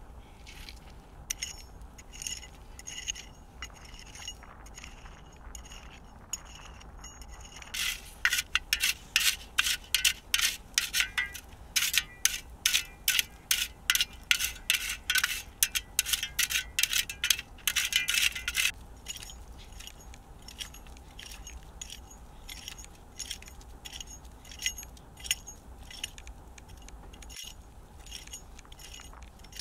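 A metal hand tool striking over and over with a ringing clink. Lighter, spaced blows give way to a run of hard, fast blows, about three a second, through the middle, then lighter blows again.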